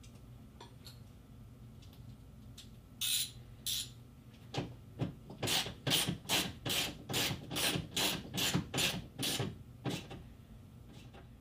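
Hand ratchet worked back and forth to tighten an actuator mounting screw in a car door frame: two swings, then a steady run of about a dozen, each a short burst of ratchet clicks, roughly two or three a second.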